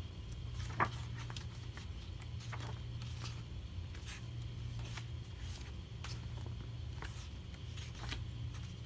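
Pages of a paperback notebook being turned by hand: a string of short paper rustles and flicks, the sharpest about a second in, over a steady low hum.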